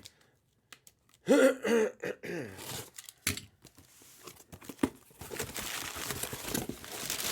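Plastic wrapping on a box of trading cards crinkling and tearing, with scattered sharp crackles and a steady crinkling hiss in the second half. A short vocal sound comes about a second and a half in.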